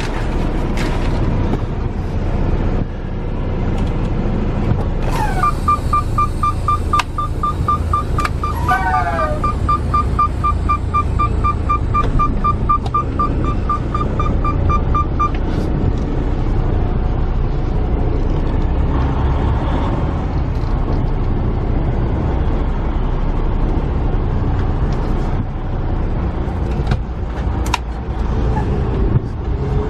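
Detroit DD15 diesel engine of a Freightliner Cascadia semi truck running with a steady low rumble. From about five seconds in, a dashboard warning chime beeps rapidly and evenly for about ten seconds, joined twice by a falling alert tone.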